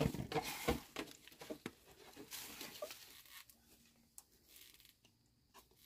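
Rustling and light knocks from hands handling raw pork on a plastic bag in a plastic basin. Busiest in the first second or so, dying down after about three seconds.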